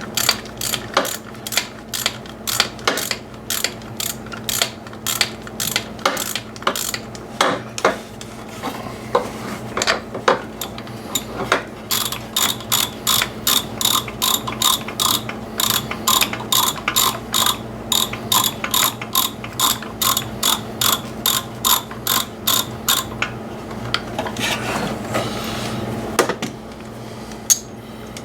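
Hand socket ratchet clicking as a bolt is turned out, in short runs of clicks at first, then a steadier run of about three clicks a second that stops a few seconds before the end.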